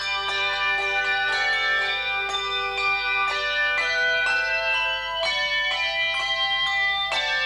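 Handbell choir playing a piece: many handbells struck in quick succession, their notes overlapping and ringing on, with a lower note held under the melody for the first few seconds.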